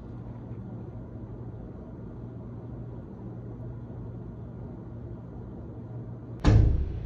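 Steady low hum of room noise, then a sudden loud thump near the end that dies away within half a second.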